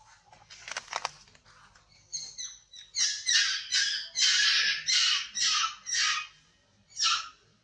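Baby long-tailed macaque giving loud, harsh distress screams, a run of about eight shrieks roughly two a second, while an adult macaque grabs and drags it. A few faint rustles come before the screaming starts.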